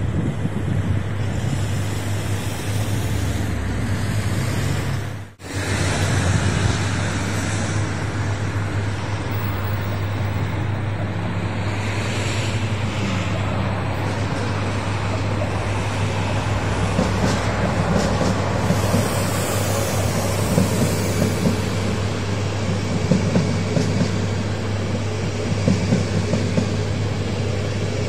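Steady rumble of city traffic and railway noise, with a double-deck passenger train approaching and rolling past on the tracks in the second half, its wheels clicking over the rail joints. The sound cuts out briefly about five seconds in.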